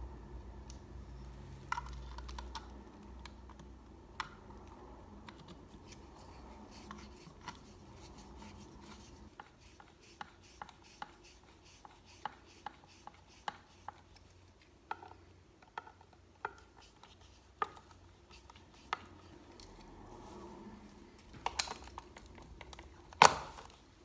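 Screwdriver turning the faceplate screws of a UK double wall socket, with small irregular clicks and scrapes of metal and plastic. Near the end there is a louder sharp click as a plug-in socket tester is pushed into the socket.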